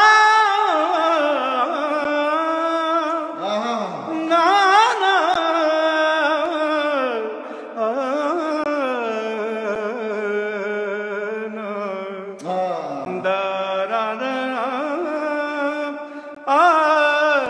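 A man singing solo and unaccompanied in an ornamented Punjabi/Indian classical style: long held notes with wavering turns and slides, sung in a few long phrases with short breaks for breath.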